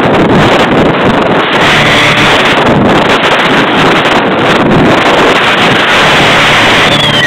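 Heavy wind buffeting the microphone of a camera aboard a moving motorboat, with the boat's motor running steadily beneath it.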